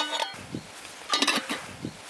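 Dishes clinking at the start, a brief ringing dying away, then quieter handling sounds with a couple of light knocks about a second in.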